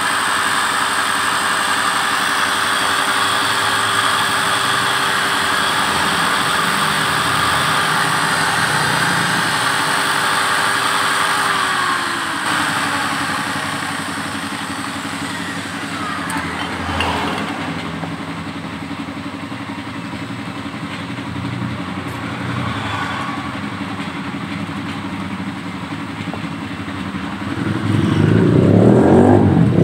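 Electric drill spinning a wire brush made from clutch-cable inner wire inside the ports of a motorcycle cylinder head, cleaning them out: a steady motor whine with wire scrubbing on aluminium, dropping to a lower pitch about halfway through. Near the end a louder, rougher rumble begins.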